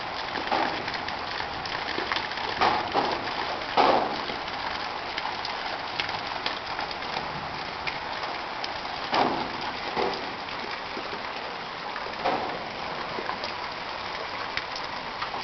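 Floodwater from an overflowing canal rushing along a road: a steady watery hiss, with a few brief louder swells.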